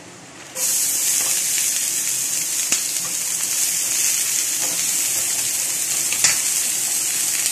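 Grated beetroot and chopped beans sizzling in hot oil with mustard seeds and chillies in a non-stick frying pan, stirred with a wooden spatula. The steady sizzle starts about half a second in, with a few faint clicks of the stirring.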